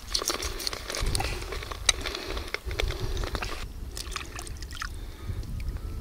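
Knife scraping and cutting a small perch, a run of sharp little clicks, then, after a change about halfway through, the fish being rinsed in shallow river water with light sloshing and dripping.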